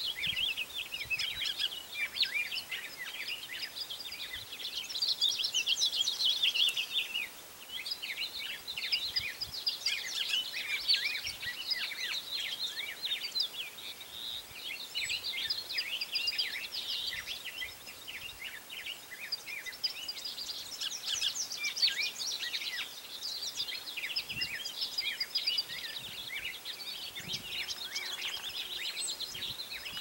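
Songbirds singing in a dense, overlapping chorus of quick high chirps and trills, with no pause.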